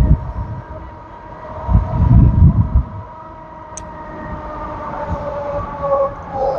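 Electric bike motor whining under way, steady tones that shift in pitch near the end, with wind buffeting the microphone in a strong gust about two seconds in.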